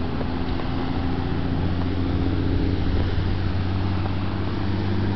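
Steady low drone of the tow speedboat's engine, heard from the parasail high above, over a light wash of wind.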